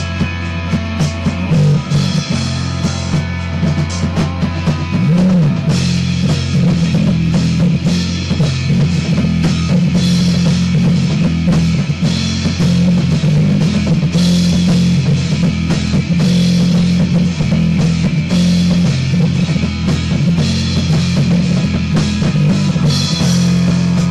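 Rock band of electric guitar, bass guitar and drum kit playing an instrumental section, recorded on a Lloyd's V327 boombox's cassette recorder, with a heavy low end.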